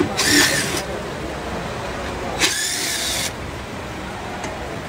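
DeWalt 18V cordless impact wrench run in two short bursts on the car's underbody bolts, the first about half a second long and the second nearly a second, each with a whine that rises and falls.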